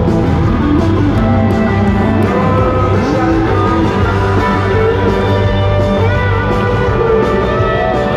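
Live country band playing, with guitar to the fore.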